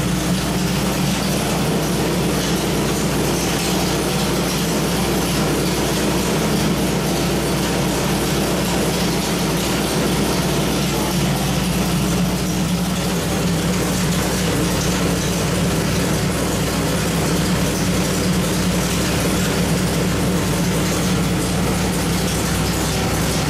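Small-block Chevrolet 434 cubic-inch V8 running at a steady speed on an engine dyno, one even low drone with no revving up or down.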